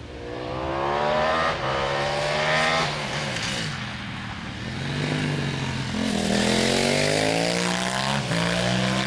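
Racing motorcycle engine under hard acceleration, the revs climbing twice in quick succession with a short break for a gear change between. The engine eases off around the middle, then pulls hard and rising again, with another gear change near the end.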